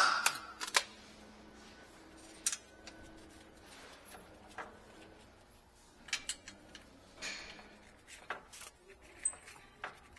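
Scattered sharp clicks and clinks of tools and parts being handled during auto repair work, loudest in a quick cluster at the start and then irregular every second or two.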